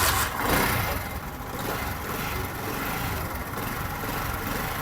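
Chinese motorcycle engine just started, a little louder in the first second, then settling to a steady idle. The clutch bearing has just been replaced, and the engine runs smooth; some timing-chain noise is still mixed in.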